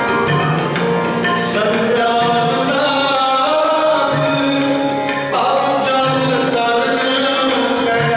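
Sikh devotional music (kirtan): singing over long held instrumental notes, with tabla-like percussion.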